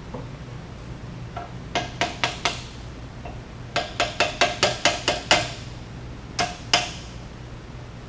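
Light metal-on-metal taps and clicks while connecting rods are fitted to an aircraft engine crankshaft, each with a short ring. They come in three quick groups: about four, then about eight, then two. A steady low hum runs underneath.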